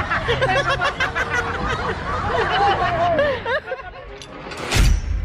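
A small group of people laughing and chattering without clear words for about three and a half seconds, then a single sudden loud burst shortly before the end.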